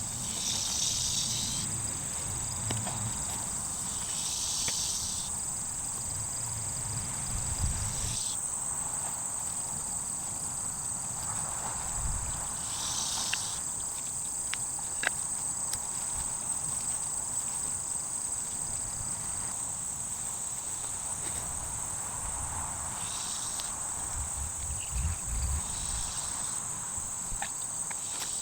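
Insects calling in a steady high-pitched chorus, with short louder spells of a lower buzz every few seconds. Under it are occasional low rustles and bumps and a few faint clicks.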